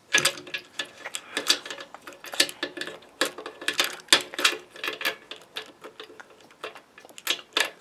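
Quick, irregular clicks and taps of small plastic toy parts, a pet figure and a toy banana, knocking together and against a hard tabletop as the figure is made to eat.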